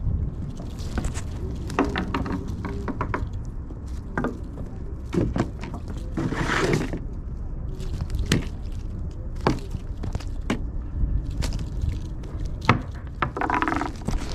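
Herring being unhooked from a multi-hook rig and dropped onto a wooden pier deck and into plastic buckets: irregular sharp knocks and slaps, with a longer scuffling burst about halfway through. A low wind rumble on the microphone runs underneath.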